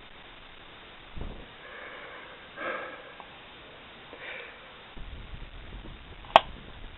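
Two short breathy puffs of a person's breath, with a low thump about a second in and low handling rumble in the second half. A single sharp click near the end is the loudest sound.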